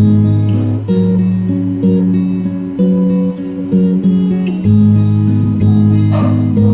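Background music: acoustic guitar playing chords.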